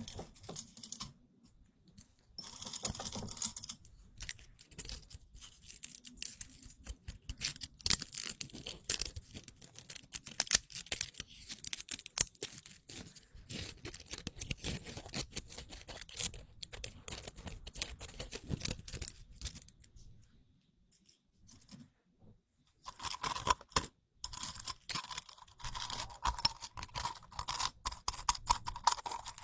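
Crisp rustling and crackling of a crinkly object handled close to the microphone: dense, irregular crackles, with a short pause about two-thirds of the way through.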